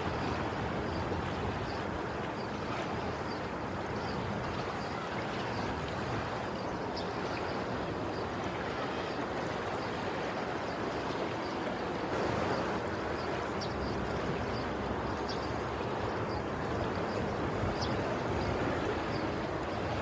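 Sea waves washing in a continuous hiss, swelling slightly twice, about twelve and eighteen seconds in.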